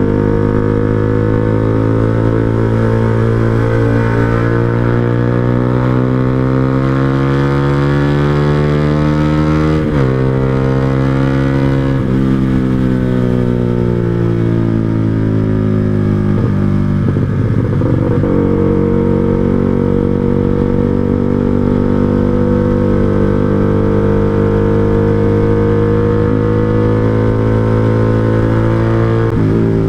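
Yamaha R15 V2's 150 cc single-cylinder four-stroke engine, breathing through a Proliner TR1R Short silencer on a 3Tech Racing Evolution header, under way. The engine note climbs slowly and drops sharply at an upshift about ten seconds in, then falls off as the bike slows. After a brief break in the note a few seconds later, it pulls steadily again.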